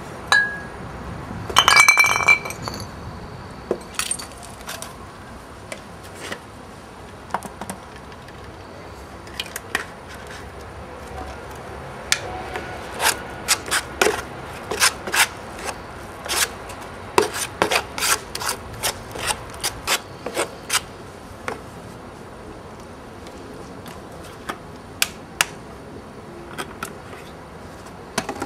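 Irregular sharp clicks and clinks of small hard objects, densest in the middle stretch, with a brief ringing chime about two seconds in.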